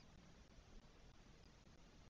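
Near silence: a faint steady hiss of the nest-camera microphone with a low rumble underneath.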